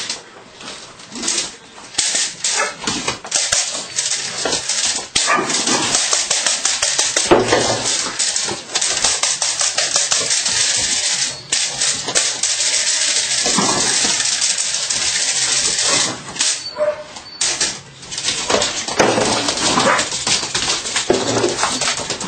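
Belgian Malinois puppy barking a few short times as it tugs at a rag, over a loud, steady scuffling hiss that breaks off briefly about three quarters of the way through.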